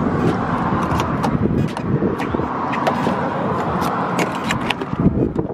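Keys clicking and rattling in a pickup truck's door lock over a steady rushing noise that stops about five seconds in.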